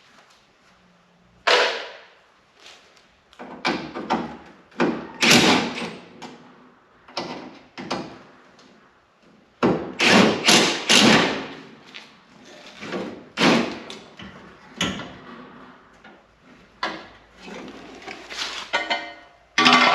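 Irregular clanks and thumps of sheet-metal body panels being handled and worked apart, a dozen or so separate knocks of varying loudness.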